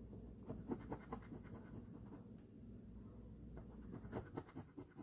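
Scratch-off lottery ticket being scratched: quick rubbing strokes in two bursts, one starting about half a second in and another from about three and a half seconds in, over a low steady hum.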